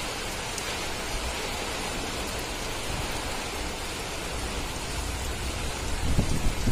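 Rain that has just started falling, a steady even hiss. A louder low rumble comes in near the end.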